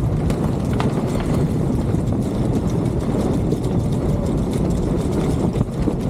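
Steady low rumble of wind buffeting the microphone aboard a sailboat under way, with a few faint ticks.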